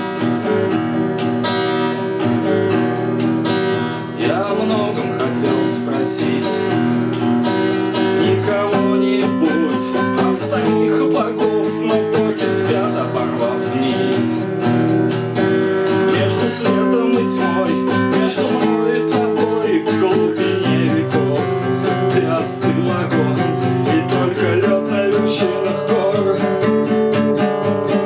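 Acoustic guitar strumming chords in an instrumental passage of a song.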